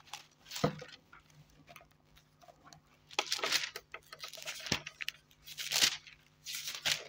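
Thin Bible pages being turned and leafed through by hand: paper rustling in several brief bursts, the longest near the middle and near the end.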